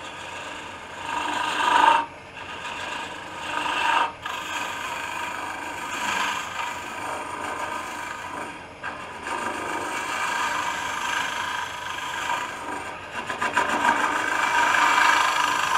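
Small carbide hollowing tool cutting into the end grain of a spinning wooden blank on a wood lathe: a continuous cutting noise as shavings come off, with short breaks about two, four and nine seconds in as the tool is eased off and re-presented.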